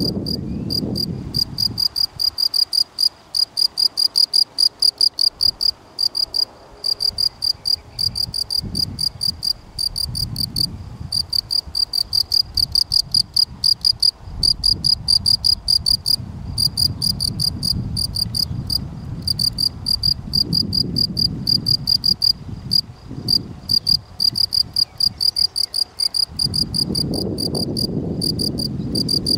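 Male European field cricket (Gryllus campestris) singing at its burrow: a shrill, high-pitched calling song of short chirps, several a second, with brief pauses between runs.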